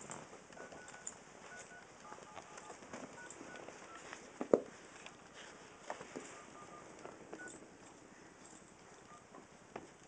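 A Rottweiler puppy and another puppy playing tug-of-war with a chew toy on carpet: scattered soft scuffs and knocks from the toy and paws, with one sharp knock about four and a half seconds in.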